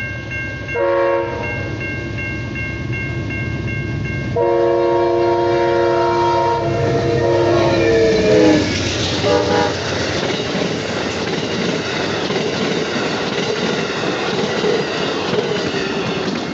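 Amtrak GE Genesis diesel locomotive sounding its horn at a grade crossing: a short blast, then a long blast whose pitch drops as the locomotive goes by, and a last short blast. A crossing bell rings steadily beforehand, and after the horn the train passes close by with a steady rumble and the clickety-clack of the passenger cars' wheels on the rail joints.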